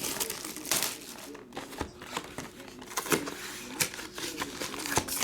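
Trading-card pack wrappers crinkling and rustling as they are handled, with scattered short clicks and taps.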